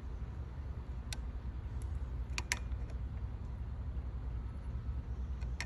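A few light, sharp clicks from handling fuses and the test light in the fuse box, about a second in, twice around two and a half seconds, and near the end, over a steady low rumble.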